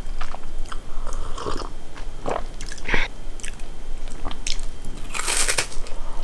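A person biting and chewing crunchy food close to the microphone: a run of short crisp crackles, with a louder crunch about five seconds in.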